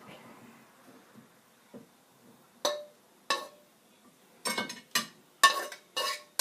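Metal utensil clinking against a dish or pan: after a quiet start, a run of about seven sharp, ringing clinks, coming faster towards the end.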